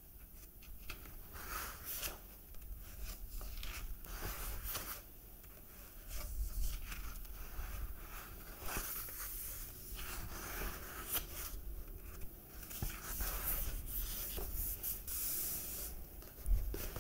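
Close-miked rubbing and scratching sounds in irregular bursts, with soft taps and clicks and a low rumble as of the microphone being touched.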